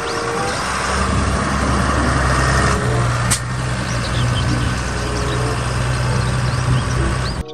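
Large Fendt farm tractor's diesel engine running steadily as the tractor drives and turns on pavement; the sound cuts off suddenly near the end.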